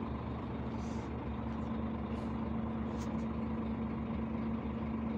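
Scania P360 truck's diesel engine idling, heard from inside the cab as a steady low hum with an even drone, plus a few faint clicks.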